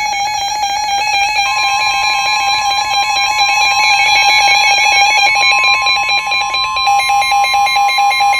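Emergency Alert System attention signal: a loud, steady, harsh multi-tone alarm tone, with a second tone joining about a second and a half in. It is the alert tone that precedes a broadcast flash flood warning.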